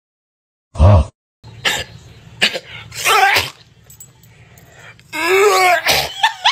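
A short, harsh, cough-like vocal burst about a second in. Then a springer spaniel makes a series of short vocal noises, the longest about five seconds in, rising and falling in pitch.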